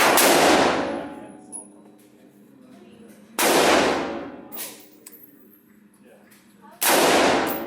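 Three gunshots about three and a half seconds apart, each a sharp report followed by a long ringing decay.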